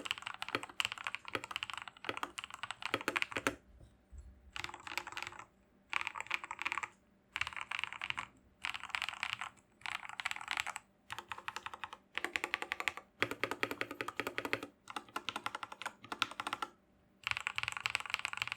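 Modded RK84 mechanical keyboard fitted with Akko Matcha Pro switches being typed on fast, a dense patter of keystrokes in bursts of one to two seconds with short pauses between them.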